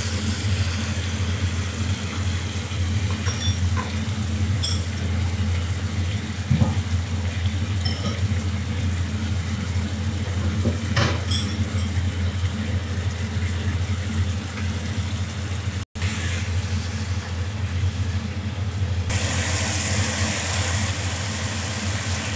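Eggplant and pork simmering in sauce in a wok: a soft sizzling hiss over a steady low hum, with a few light clicks. The hiss grows louder near the end.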